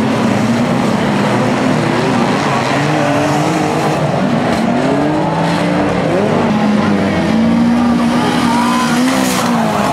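Several banger-racing cars' engines revving together, their pitches rising and falling over one another, with a couple of faint knocks of car bodies hitting.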